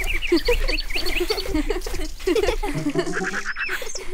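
A busy chorus of birds chirping, with many short quick high calls over a dense run of lower, shorter calls. A short buzzy call comes about three seconds in.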